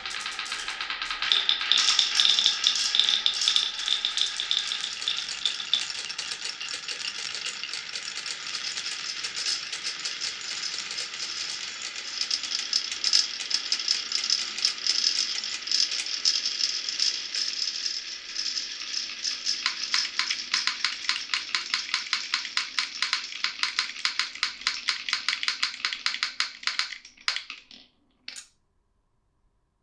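Many marbles rolling and clattering down a marble run, a dense rattle of clicks. In the last third it turns into a rapid, even clicking, then stops shortly before the end.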